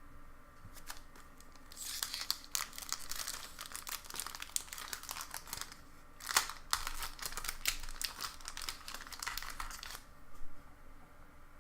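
Crinkling and tearing of a Pokémon booster pack's foil wrapper as it is ripped open and handled: dense crackling starting about two seconds in, with a short break midway and a last brief crackle near the end.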